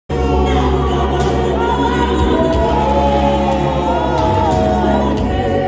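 Gospel choir singing over a sustained keyboard accompaniment, cutting in abruptly after silence.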